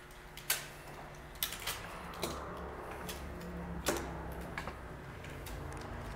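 Strip of green powder-coating masking tape being handled and pressed onto a polished aluminium wheel: a few scattered light clicks and ticks over a faint low hum.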